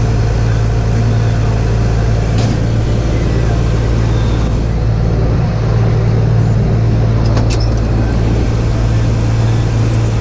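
Tractor engine running steadily at an even pitch, with two brief clicks, one about two and a half seconds in and one about seven and a half seconds in.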